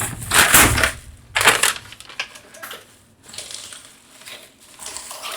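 Packing material being pulled out of a box and crumpled by hand: crackling and rustling, loudest in the first second and a half, then softer, scattered rustles.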